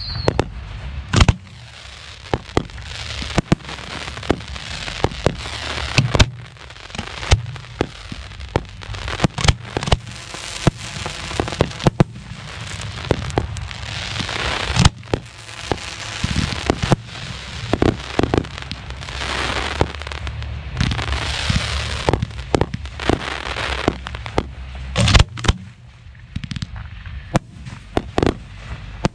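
Professional 1.3G aerial firework shells firing from the mortar racks and bursting, many sharp reports in irregular quick succession. Stretches of dense crackle and hiss come in between them.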